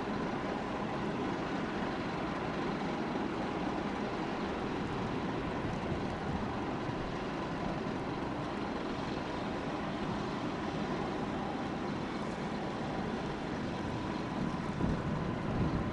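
Steady low drone of a large Ro-Ro passenger ferry's diesel engines and machinery as the ship passes close by, with a faint steady whine over it. Wind gusts on the microphone grow louder near the end.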